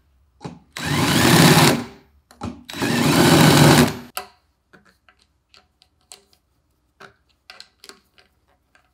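A drill runs and its bit cuts into a machined steel plate in two bursts of about a second each, ending about four seconds in. After that come only a few faint, scattered clicks and taps of metal parts being handled.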